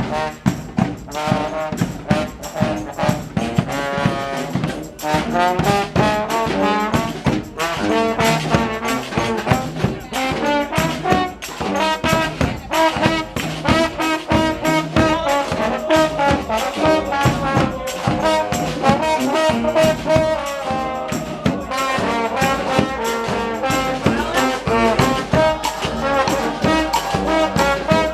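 A community street band playing a tune on brass horns, with a steady beat of drum strokes underneath.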